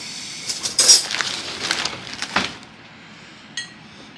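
Crinkling of a plastic chip bag being handled, in a few bursts with the loudest about a second in, then a single short click near the end.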